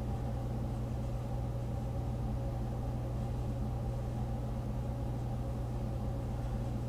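A steady low hum with no rhythm and no change in level.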